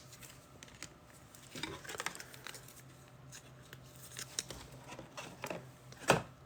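Trading cards and their foil packs being handled: light rustling, crinkling and tearing with scattered small clicks, and one louder knock about six seconds in.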